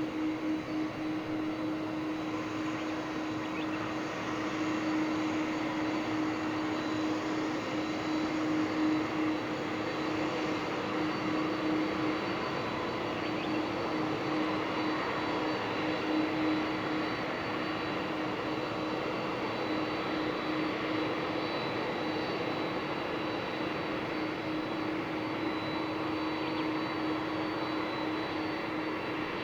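Jet engines of a Boeing 767-300ER running steadily at low power, with a continuous rush, a steady hum and a faint high whine, level throughout with no spool-up.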